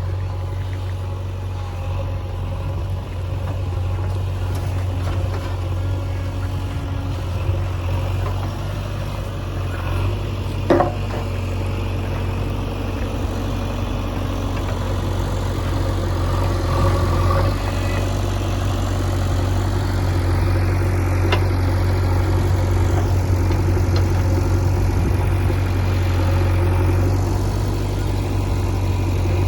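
Heavy diesel engine of earth-moving machinery running steadily, getting a little louder past the middle, with a sharp knock about eleven seconds in and a lighter one around twenty-one seconds.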